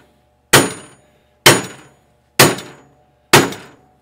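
Sledgehammer striking a long steel bar held against the bent front bulkhead of a 1982 Polaris TXL Indy snowmobile, knocking out the dents: four heavy blows about a second apart, each with a short metallic ring.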